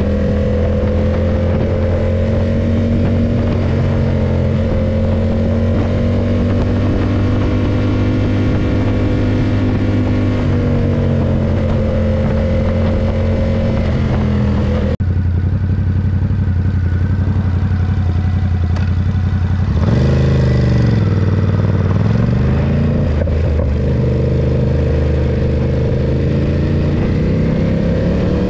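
Ducati SuperSport 939's L-twin engine running steadily on the move, its pitch drifting slightly with throttle. About twenty seconds in, the revs drop briefly and climb again, as on a gear change.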